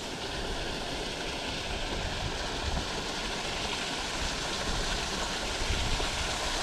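Steady rush of water spilling through the leaking gates of a river lock, with irregular low rumble of wind on the microphone beneath it.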